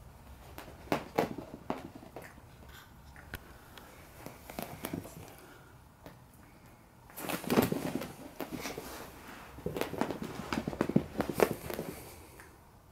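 Beagle puppies playing and scuffling on carpet: scattered light knocks and scrabbling, with two busier spells of tussling, one a little past halfway and one near the end.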